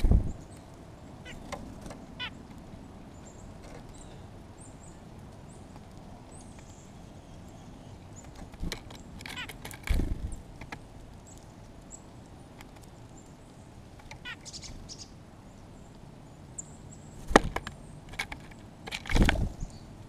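Downy woodpecker pecking at a seed tray close to the microphone: a few loud, irregular knocks, clustered near the start, about halfway and near the end. Faint high chirps of small birds in the background.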